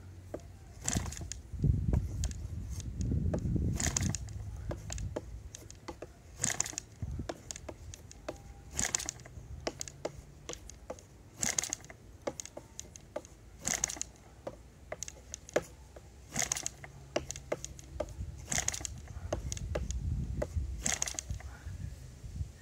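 A Saito FA-180 four-stroke model airplane engine, converted to gasoline spark ignition, being turned over by flipping its propeller by hand without catching. Each flip gives a short, sharp sound, about every two and a half seconds. There is a low rumble early on and again near the end.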